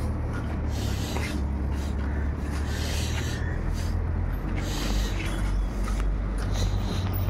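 Footsteps on a dirt road over a steady low rumble, with irregular scuffs and knocks.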